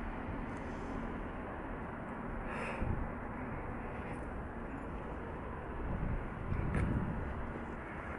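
Steady outdoor city background noise, like distant traffic, with a short scrape about three seconds in and a few low rumbling swells near the end.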